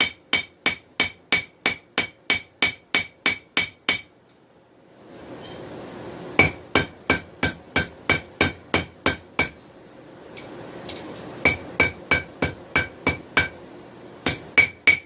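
Hand hammer planishing a hot 416 stainless steel knife blank on an anvil to smooth it: quick runs of ringing blows, about three a second. The runs break off twice for a second or two, and a low rushing noise fills those gaps.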